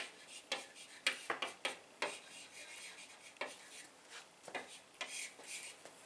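Chalk writing on a blackboard: a run of short scratching strokes and sharp taps, irregularly spaced.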